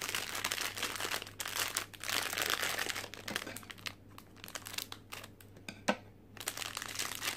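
Foil blind-box pouch crinkling as it is handled and cut open with scissors, in irregular spells, with one sharp click about six seconds in.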